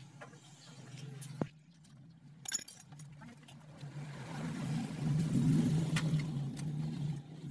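A few sharp metal clicks of tools and parts as the cam chain sprocket and tensioner are taken off a motorcycle engine, over a steady engine hum that grows louder about four seconds in.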